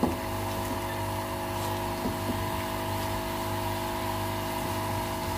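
Steady hum of a running motor, like a kitchen fan, holding a few fixed tones. A few faint knocks from a silicone spatula stirring carrot pieces in syrup in a pan, one at the very start and a couple about two seconds in.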